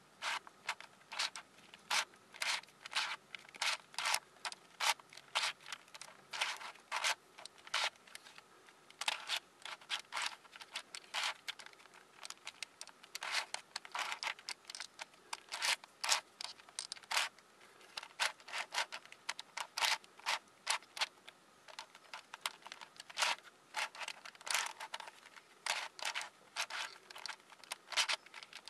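Plastic layers of a hand-made Siamese 5x5x5 twisty puzzle, built from two East Sheen 5x5x5 cubes, being turned by hand: an uneven run of short clicking, scraping turns, about two or three a second.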